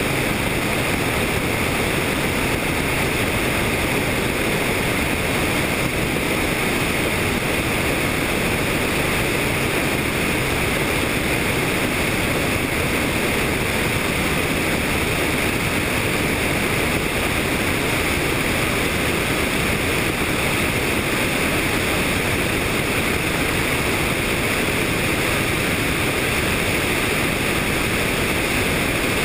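Helicopter in steady flight, heard as an even, unbroken rushing noise of engine, rotors and airflow.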